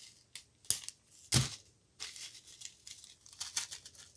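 Plastic bead bags crinkling and rustling as they are handled, with two loud, sharp crackles about a second in.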